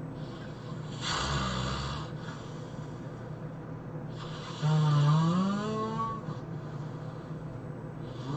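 A person snoring loudly: a rough, noisy snore about a second in, then a louder snore about five seconds in with a pitched tone that rises as it goes.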